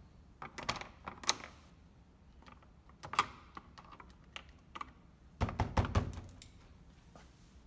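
Sharp plastic clicks and knocks as a flat-blade screwdriver pries at the clipped-in plastic armrest trim of a Toyota Land Cruiser 79 Series door. About five and a half seconds in comes a louder cluster of knocks and dull thuds as the armrest is gripped and worked by hand.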